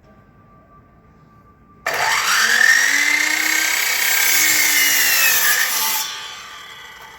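Electric power saw starting up and cutting wood for about four seconds, its whine climbing, holding, then sinking before it drops away. It begins suddenly just under two seconds in.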